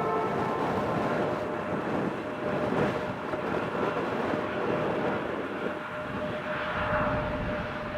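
Jet airliner engines on approach, a steady rumble with a thin steady whine, mixed with gusty wind on the microphone.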